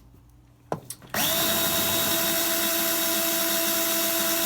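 A power drill turning a Hornady Cam-Lock case trimmer starts about a second in and runs at a steady speed with an even whine. A single click comes just before it starts.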